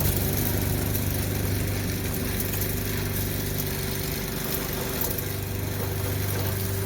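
Lawn mower engine running steadily, a constant drone at an even pitch.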